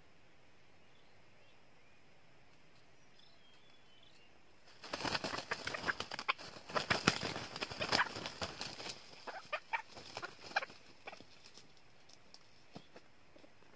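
Two red junglefowl roosters fighting: a sudden flurry of hard wing-beats and scuffling starts about a third of the way in, loudest over the next few seconds, then thins to scattered flaps and stops.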